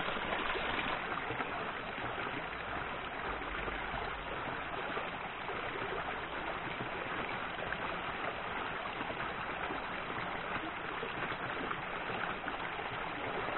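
A small rocky stream flowing over stones: a steady rush of water.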